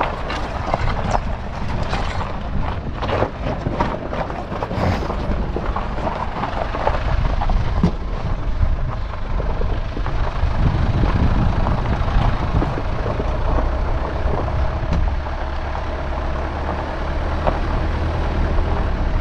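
Force Gurkha's diesel engine pulling at low speed up a rocky dirt trail, heard close up, with loose stones crackling under the tyres in the first few seconds.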